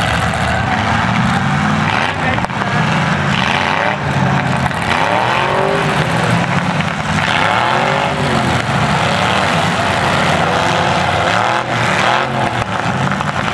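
Demolition derby cars' engines running loud in the arena, revving up and down several times in overlapping rising and falling surges.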